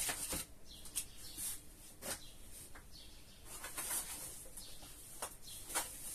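Plastic shopping bags rustling and crinkling as groceries are rummaged through and lifted out, with scattered sharp clicks and light knocks of packages being handled.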